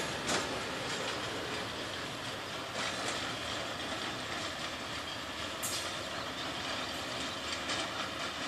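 Loaded open freight wagons rolling away along the track: a steady rumble and rattle of wheels on rail, with a few sharp clicks through it.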